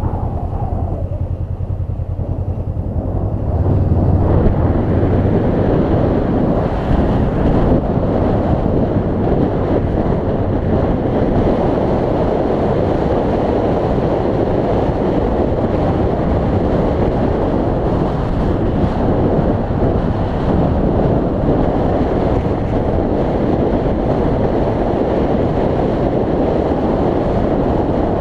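Wind rushing over the microphone of a Honda CB500X motorcycle on the move, with the parallel-twin engine's low note underneath. The wind rush gets louder about four seconds in and then holds steady.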